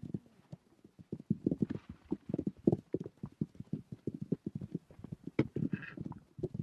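Hooves of several feral horses galloping on grassy ground: an uneven, rapid run of dull thuds.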